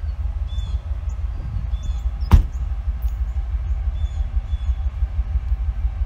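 Low rumble of a CSX diesel freight train approaching in the distance, with small birds chirping faintly. A single sharp knock about two seconds in is the loudest sound.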